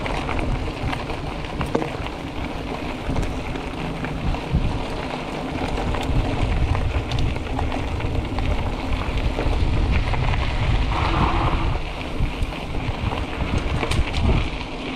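Mountain bike riding over rough trail: steady wind buffeting on the microphone, with tyre noise and scattered rattling clicks from the bike.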